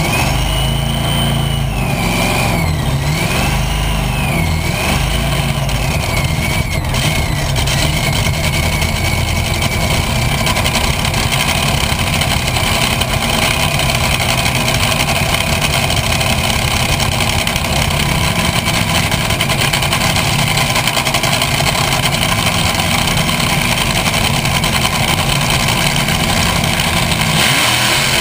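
Top fuel dragster's supercharged V8 firing up and then running loud and steady. A wavering high whine sounds over the first several seconds.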